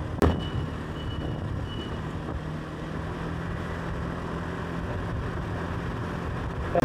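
Single-cylinder scooter engine running steadily while riding, with road and wind noise. A sharp click comes just after the start.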